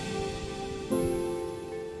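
Soft instrumental background music: sustained chords, with a new chord struck about a second in that then fades.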